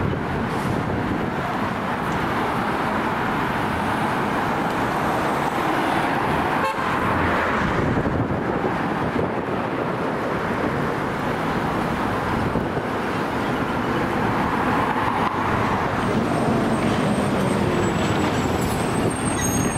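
Steady street traffic noise: cars passing close by, the rush swelling and fading as each goes past.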